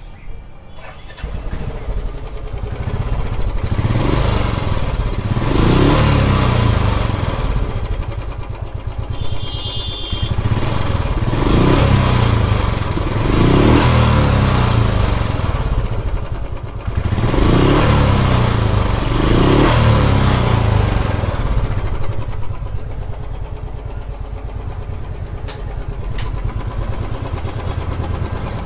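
Royal Enfield Classic 350 BS6 single-cylinder engine started, then idling and revved in three pairs of blips, with a rough, cracked-sounding note. The mechanic links this kind of engine noise to a failing hydraulic tappet letting the rocker go slack.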